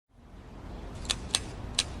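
Three sharp, short ticks over a low, steady rumble, fading in at the start.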